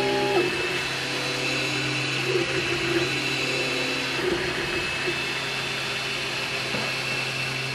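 MakerBot Replicator 2 3D printer at work: its stepper motors whine in short tones that change pitch every second or so as the print head moves, over a steady low hum.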